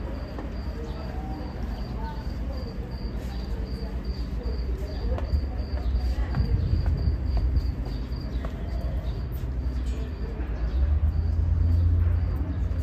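Outdoor ambience: a high, thin chirp repeating about three times a second, dropping out after about eight seconds, over a low steady rumble that swells near the end.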